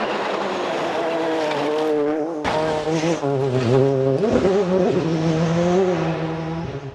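Rally cars running hard at high revs on a gravel stage: a Ford Focus rally car's engine, then after a sudden cut a second rally car passing, its engine note dipping and rising again through a gear change about four seconds in.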